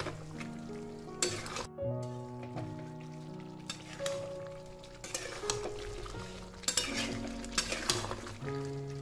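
A steel spoon stirring and scraping spiced chicken pieces around a metal kadai, with irregular scrapes and light clinks over a soft sizzle. Soft background music with slow held notes plays underneath.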